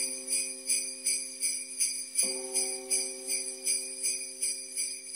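Jingle bells shaken in an even rhythm, about three shakes a second, over held low chords that change about every three seconds: a bell-led music intro.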